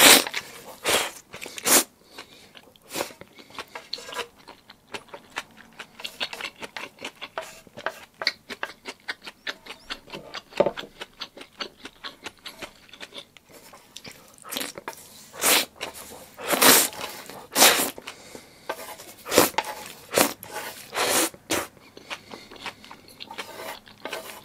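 Close-miked eating of black bean sauce noodles: wet chewing and lip smacks throughout, with several louder slurps in a cluster about two-thirds of the way through.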